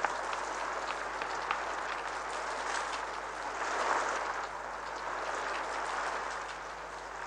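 Heavy rain pouring down: a steady, dense hiss of a downpour with a few sharper drop ticks near the start, swelling a little in the middle.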